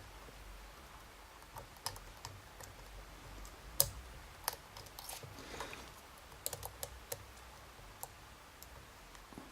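Faint, irregular small clicks and ticks of a lock pick working the pins of a Keymaster challenge lock under tension, the lock sitting in a deep false set; a few clicks bunch together about two-thirds of the way in.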